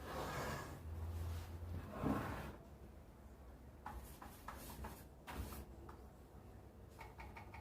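Quiet rubbing and scraping with scattered small clicks, like hands handling parts. There is a brief low hum about a second in.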